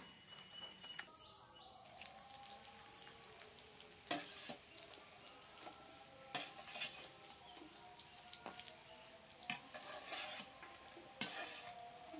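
Potato fries sizzling in hot oil in a wok during their second fry, as more are slid in. A metal slotted spoon clinks and scrapes against a steel bowl and the pan several times.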